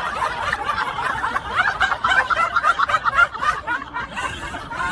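A person laughing, breaking into a quick run of short laughing pulses partway through.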